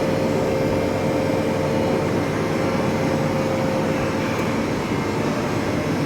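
CME FCM 6000 CNC machine running with a steady, dense machine-shop hum. A steady tone in the hum fades out about four and a half seconds in.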